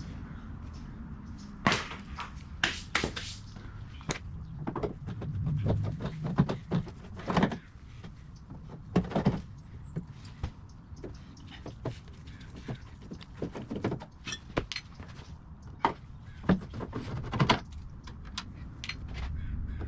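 Irregular knocks, clicks and rattles of hand tools and car body parts being handled while the rocker panel is unscrewed and taken off an air-cooled Porsche 911, over a low steady hum.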